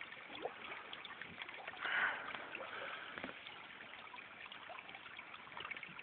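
Water lapping and trickling against a small boat's hull, a faint steady background, with one brief louder sound about two seconds in.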